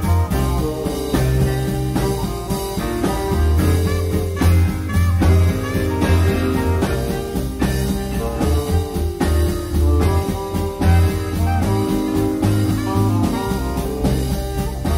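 Band jamming a groovy, laid-back tune with keyboard, over a steady beat and a deep, moving bass line.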